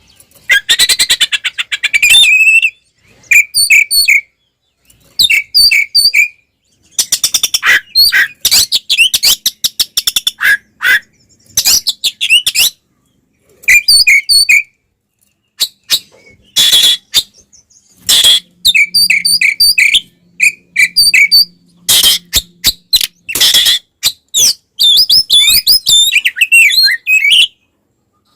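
Oriental magpie-robin (kacer) singing an agitated, fighting-style song: loud phrases of rapid chirps, whistles and rattling note-bursts, broken by short pauses.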